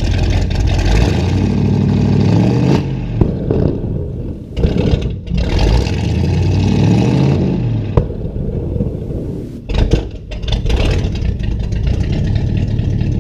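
Car engine revved hard twice, each rev rising then falling, with sharp pops and cracks from the exhaust as it spits small flames out of the tailpipes.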